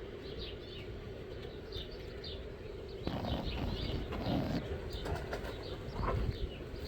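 Small birds chirping: short, high chirps repeating several times a second. From about three seconds in, louder rustling and bumping from handling at the nest.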